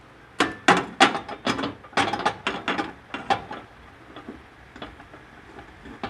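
Glass microwave turntable tray knocking and clicking as it is set down onto the roller ring in the oven cavity: a quick run of sharp knocks over the first three seconds or so, then a few fainter taps.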